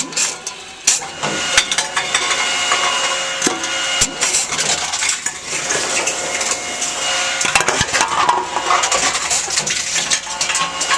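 Tomra T-53 reverse vending machine taking in aluminium cans: repeated clattering and crunching of cans, over a steady machine hum.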